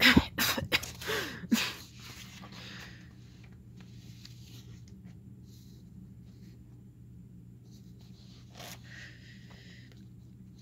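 A person's voice making a few short, loud vocal sounds with sliding pitch in the first two seconds, then only a steady low hum.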